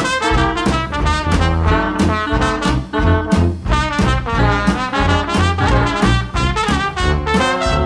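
Instrumental background music in a swing-jazz style, led by brass, with a steady beat.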